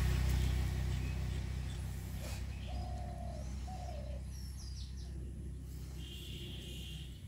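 A dove cooing twice, short and level, with a few higher bird chirps and a brief buzzy call later, over a loud low hum that slowly fades away.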